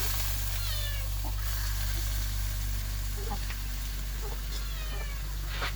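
Kittens meowing repeatedly: several short, high-pitched calls that fall in pitch, over a steady low hum and hiss.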